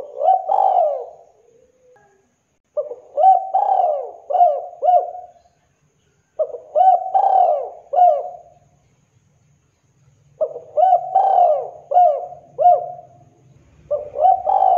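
Spotted dove (tekukur) cooing: five phrases, each a quick run of three or four short, arched coos, with a pause of a second or two between phrases. The first and last phrases are cut off by the window.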